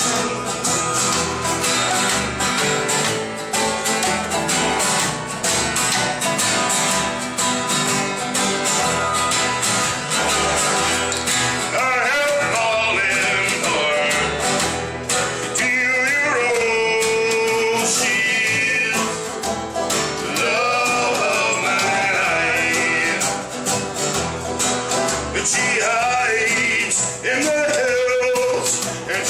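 Acoustic country string band playing live: two acoustic guitars and an upright bass, with a man singing from about twelve seconds in.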